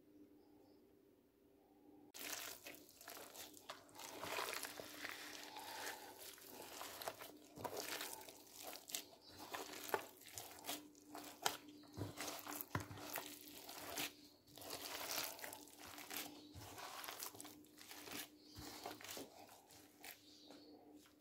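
Gloved hand kneading raw chicken kebab mixture in a plastic bowl: irregular wet squishing and crinkling that starts about two seconds in.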